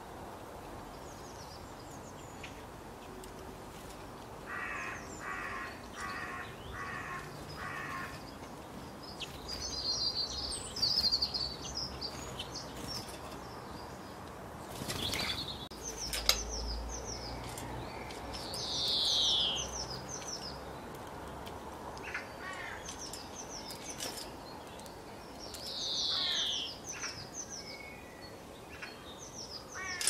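European starling calling and singing: a run of five harsh, rasping notes in quick succession, chattering and clicking, and twice a long falling whistle, with high chirps throughout and a dull bump about halfway through.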